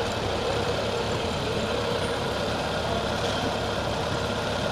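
Toyota 4K four-cylinder petrol engine idling steadily, after its idle was set to the specified 800 rpm.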